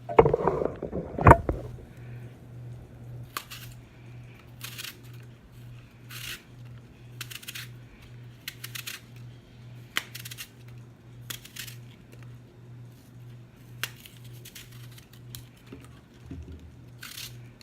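Kitchen knife cutting through spiralized apple: a string of short, crisp cuts at roughly one a second, with a sharp knock about a second in.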